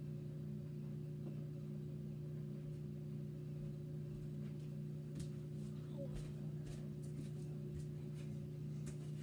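Steady low electrical hum of a few held tones, with a few faint light taps and clicks in the second half from hands working at a table.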